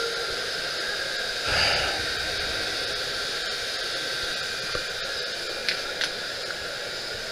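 Steady hiss of store background noise with faint steady high tones, and one brief louder rustle or bump about one and a half seconds in.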